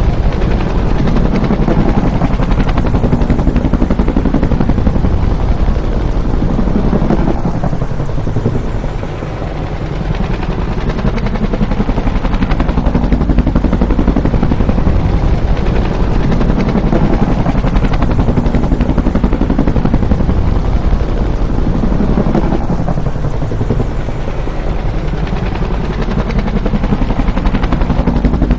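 Bell UH-1 Huey helicopter with its two-bladed main rotor beating steadily and its turbine engine running, loud and continuous. The sound eases briefly about eight seconds in and again about twenty-three seconds in.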